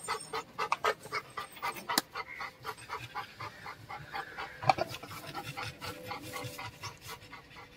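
A dog panting quickly and rhythmically, several breaths a second. A sharp click comes about two seconds in, and a louder knock a little past halfway.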